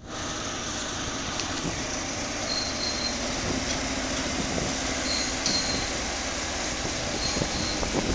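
Passenger train carriage pulling away from a station at low speed: a steady rumbling running noise, with a few brief, faint high-pitched squeals now and then.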